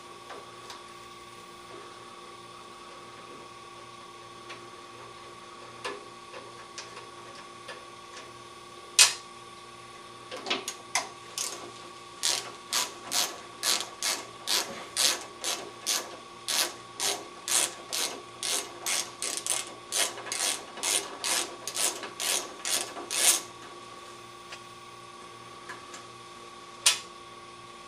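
A ratchet wrench clicks while it loosens a carburetor fastener. A few scattered clicks come first, then a steady run of about two to three clicks a second for some ten seconds, then one lone click near the end.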